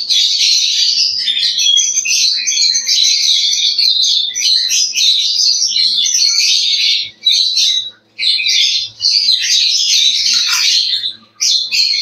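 A flock of lovebirds chattering, dense and continuous, with a few short breaks in the second half.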